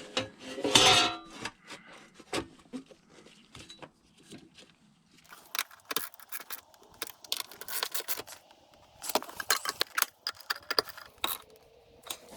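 Metal clinks, clicks and rattles of a cover plate and its fasteners being handled and fitted back in place under a pickup's parking brake pedal. There is a loud clatter about a second in and quick runs of clicks in the second half.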